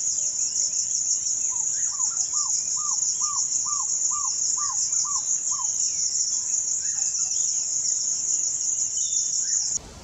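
African barred owlet calling: a run of about ten short notes, each rising and falling in pitch, about two and a half a second. The calls sit under a louder, steady high-pitched insect chorus that cuts off near the end.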